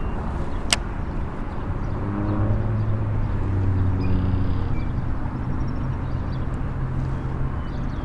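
A distant engine droning, swelling from about two seconds in and fading out near the end, over a low rushing of wind on the microphone. A single sharp click comes just under a second in.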